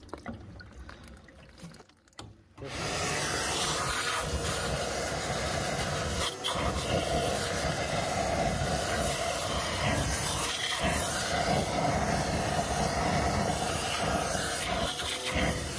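Wet vac switched on about two and a half seconds in, its motor then running steadily as it sucks on the open heating pipework to hold the system under vacuum.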